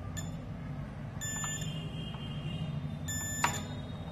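Digital multimeter's continuity buzzer giving two short beeps, about half a second each and two seconds apart, as the test probe touches points on a laptop motherboard. The beep signals a low-resistance path between the probes. A sharp click of the probe on the board comes with the second beep.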